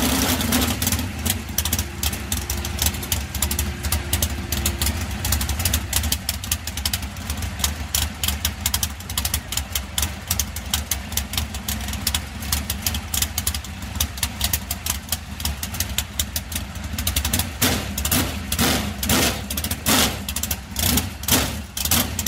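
A 410 cubic inch sprint car V8 running at an uneven idle during an engine check. In the last few seconds it comes in several short, louder bursts.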